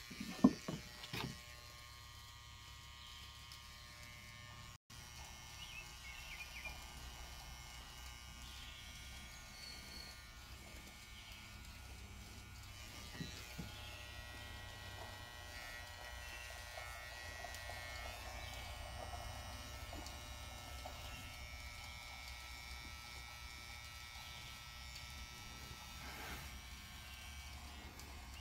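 Corded electric hair clippers buzzing steadily while shaving a man's head, after a couple of brief, louder noises in the first second or so.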